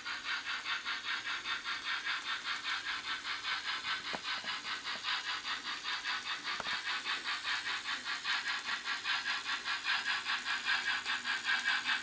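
H0-scale model G 4/5 steam locomotive running with its train, giving a steady, even beat of hissing steam chuffs, about four a second, with light rattling from the model train on the track.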